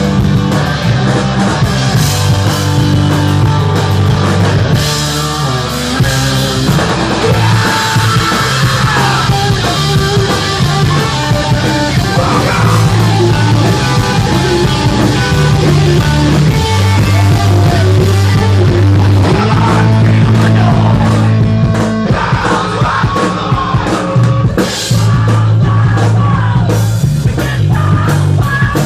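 Rock band playing live and loud: a drum kit with crashing cymbals, bass and electric guitar, the bass notes changing every second or two.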